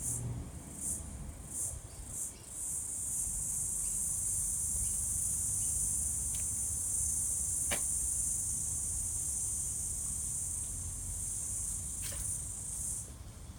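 Cricket singing: a few short high-pitched chirps, then a continuous high trill that stops shortly before the end. Two faint clicks, one just past the middle and one near the end, with a low background rumble.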